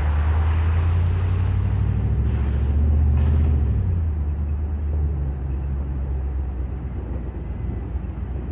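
Ford Raptor pickup's engine running at low revs, pulling harder and getting louder about three seconds in, then easing off.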